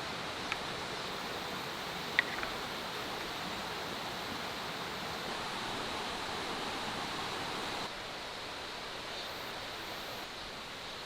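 Steady rushing noise, with a light click about half a second in and a sharper click about two seconds in; the noise drops a little about eight seconds in.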